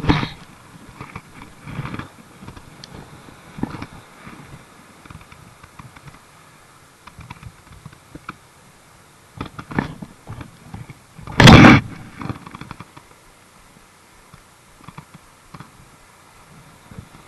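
Scattered knocks and rubbing of handling close to the microphone, with one loud, brief thump a little past the middle.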